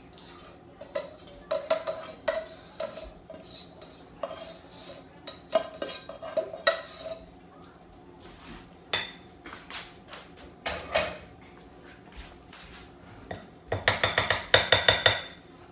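Dishes and utensils clinking and clattering as food is handled, with scattered light taps and clinks through most of it and a burst of loud, rapid clatter near the end.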